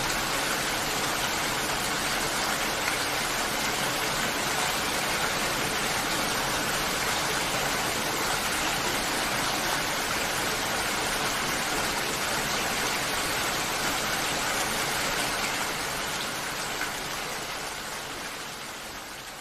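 Steady rain, an even dense patter, that fades down over the last few seconds.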